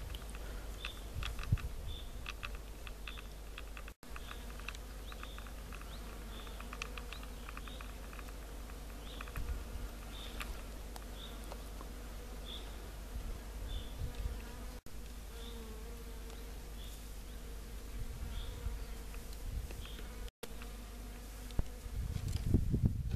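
A flying insect buzzing steadily, its pitch wavering near the middle. A short high note repeats about once a second, and low thumps come now and then, the loudest near the end.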